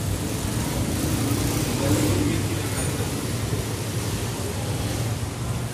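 Road traffic with a steady low engine hum running throughout, and faint voices about two seconds in.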